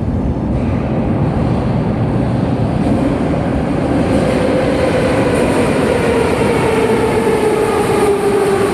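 Moscow metro train running: a loud, steady rumble and rush of rolling noise, with a whine that slowly falls in pitch over the second half.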